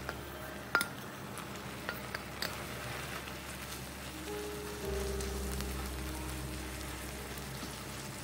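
A spatula stirring and scraping sticky rice through a wet filling in a nonstick pan, with a few sharp clicks of utensil on pan in the first few seconds, the loudest about a second in. Soft background music plays underneath.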